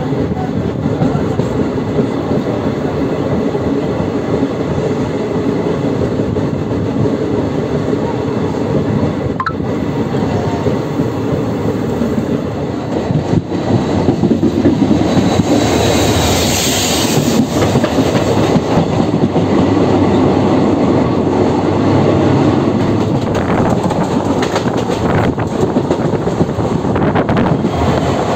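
Indian Railways passenger train running, heard from on board: a steady rumble of coach wheels on the rails with clickety-clack. The sound gets louder about halfway through, with a brief higher hiss soon after.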